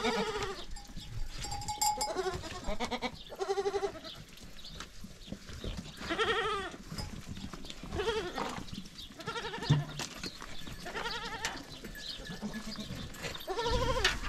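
Young goat kids bleating, a dozen or so short wavering calls from several animals one after another.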